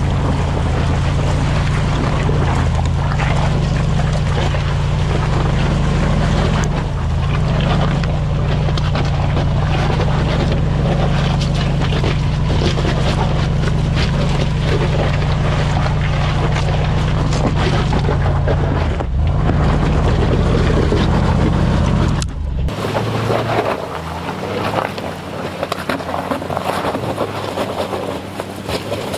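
Range Rover Sport's engine running steadily under load while its tyres crunch and grind over loose gravel and stones, heard up close from beneath the vehicle. About three-quarters of the way through the sound cuts abruptly to the same SUV heard far off, much quieter and thinner.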